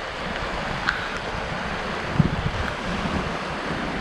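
Steady rush of wind and ocean surf during a winter storm, with wind buffeting the microphone and a couple of brief soft knocks.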